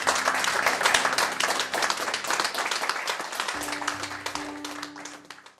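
Crowd applause, a dense patter of many hands clapping, fading out near the end, with low held musical notes under it in the second half.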